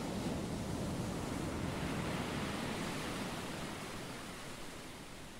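Sea waves rushing as a steady surf, swelling at the start and fading away over the last couple of seconds.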